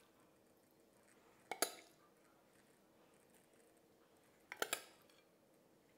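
A metal serving spoon clinks against a stainless steel pot while chicken filling is spooned out: a quick double clink about a second and a half in and another near the end, otherwise quiet.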